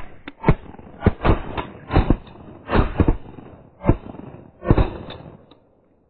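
A rapid volley of shotgun shots, about ten sharp bangs in five seconds, some in quick pairs, as several hunters fire at ducks.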